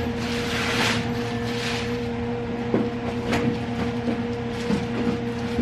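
Packaging of a ride-on toy car being handled, with short bursts of scraping and rustling, over a steady low hum.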